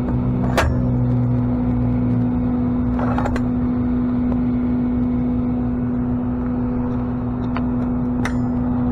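Tow truck's engine running at a steady speed, a constant hum and rumble, with a few sharp clicks or knocks over it.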